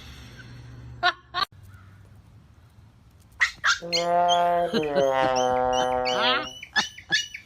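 An animal's long drawn-out call lasting about three seconds, its pitch wavering and sweeping up at the end, followed by a few short calls near the end.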